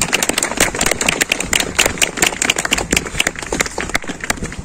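Crowd applauding, many hands clapping at once, dying away near the end.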